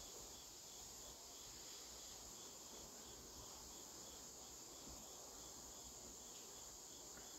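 Near silence: faint steady high-pitched hiss with a faint, evenly repeated chirp.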